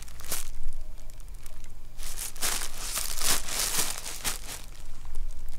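Clothes rustling and crinkling as a hand rummages through them, in a run of short bursts that is busiest from about two to four and a half seconds in.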